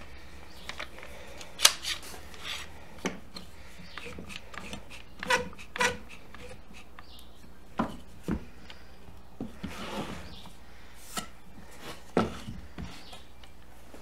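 Irwin Quick-Grip one-handed bar clamp being set and tightened across a glued crack in a wooden rail: scattered clicks and knocks of the clamp's trigger and jaws and of the wood on the bench, with a short rasp of handling about two thirds of the way in.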